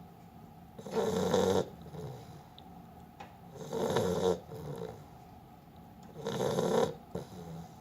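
A beagle snoring in a steady rhythm: three loud snores, each followed by a softer breath, about every two and a half to three seconds.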